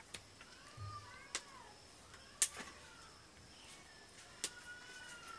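Sharp clinks of steel plates and utensils, three of them, the loudest about halfway through. Faint rising-and-falling animal calls sound in the background.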